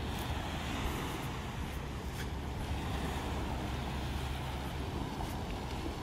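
Wind rumbling steadily on the microphone, with small waves lapping at the shore of a sandy beach.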